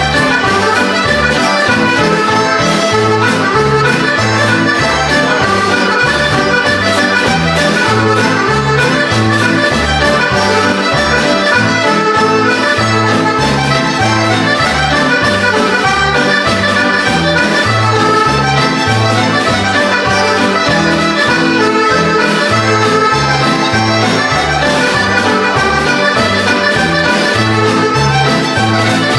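Hohner Starr button accordion playing a 2/4 march: a continuous melody over a steady, evenly paced bass-and-chord accompaniment.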